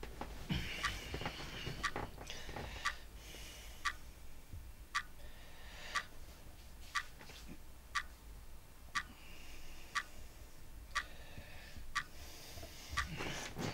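Clock ticking steadily, about one tick a second, with soft rustling of bedclothes between some of the ticks.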